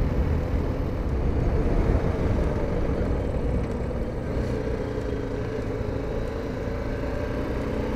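BMW G 310 GS single-cylinder motorcycle engine running at a fairly steady cruising speed, with road and wind rumble, as heard from a camera mounted on the bike.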